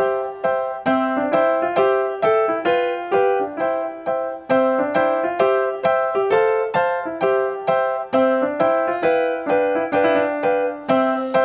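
Background music on a piano-like keyboard: a melody of quick single notes, each struck and fading, about three a second.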